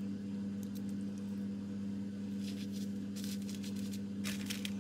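Steady low electrical hum, with short bursts of crackling and soft wet squishing as hands lay salted squid pieces on newspaper, the handling noises bunched in the second half.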